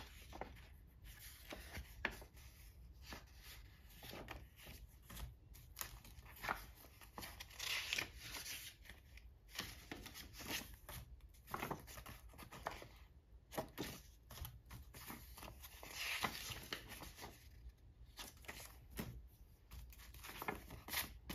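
Vintage paper greeting cards being handled: soft rustling and sliding of card stock as cards are picked up, opened and laid back on the pile, with scattered light taps on the table and a couple of louder rustles.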